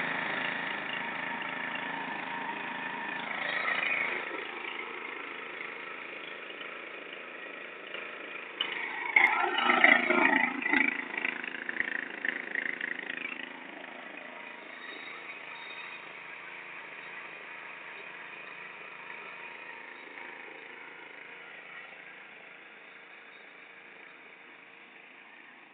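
Honda GX200 single-cylinder four-stroke engine running while it drives a Gingery metal lathe spindle. It swells briefly about three seconds in and more strongly from about eight to thirteen seconds in, then settles and gradually grows fainter.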